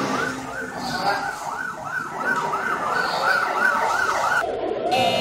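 A siren in a fast up-and-down yelp, about three sweeps a second. Near the end it changes to slower, lower sweeps.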